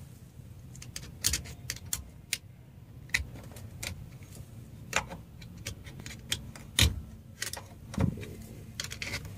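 Irregular metallic clicks and light scrapes of a screwdriver working a retaining ring down the steering column shaft, against the steel lock-plate compression tool. A dozen or so separate clicks, the loudest a little before seven seconds and at eight seconds.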